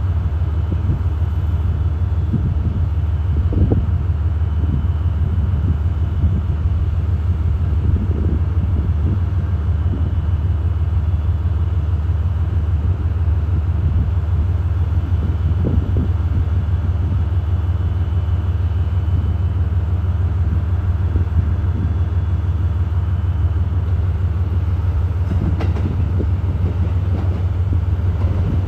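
JR Freight DF200 diesel-electric locomotive's engine running with a loud, steady low drone.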